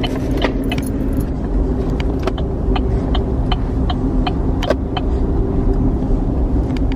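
Car running inside the cabin, a steady low rumble and hum, with the turn signal clicking at an even pace of about two to three clicks a second.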